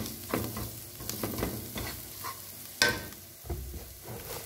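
Sliced onions and ground spices sizzling in a granite-coated frying pan, with a wooden spatula stirring and scraping against the pan in a run of strokes. A sharper clack comes about three seconds in. After that the stirring stops and the sizzle goes on.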